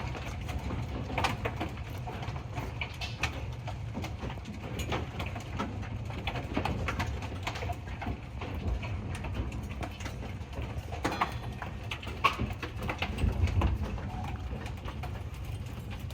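Hailstones striking hard surfaces in a heavy hailstorm: many sharp, irregular clicks and knocks over a steady low rumble.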